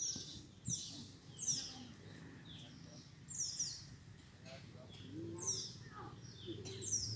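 Small birds chirping: short, high, falling chirps repeated at irregular intervals, roughly one to two a second.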